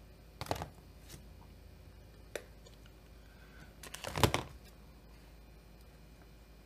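A few light clicks and knocks of small parts and tools being handled on a workbench, with the loudest cluster about four seconds in, over a faint low hum.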